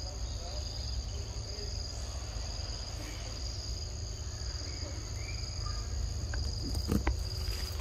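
Steady insect chorus, two high even tones, over a low rumble, with a couple of faint clicks near the end.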